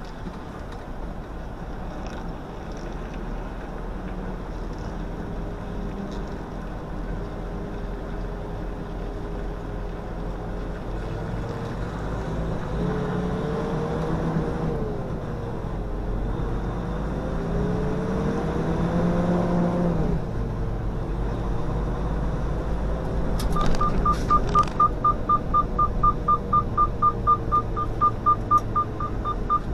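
Semi-truck engine running, heard from inside the cab, its pitch rising and falling several times as the truck picks up speed and shifts gears. About three-quarters of the way in, a rapid electronic beeping at one steady pitch starts and keeps repeating.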